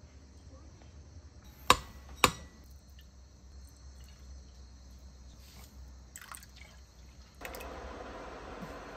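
Two sharp clinks of cookware about half a second apart, a few faint taps, then a steady rushing hiss that starts suddenly near the end.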